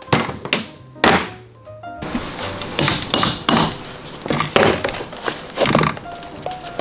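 A series of sharp knocks and taps from bench work on a leather boot's sole and heel, over background music.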